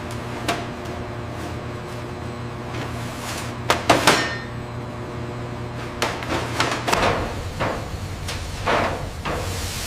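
Food-processing machinery running with a steady hum, with intermittent knocks and clattering, the loudest cluster about four seconds in. The hum shifts in tone about seven seconds in.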